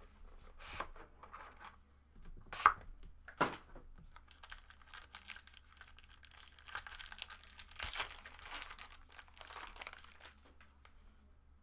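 Plastic wrapping on a sealed trading card box being torn and crinkled open by hand, with a few sharp snaps in the first few seconds and a longer stretch of rustling crinkle later on.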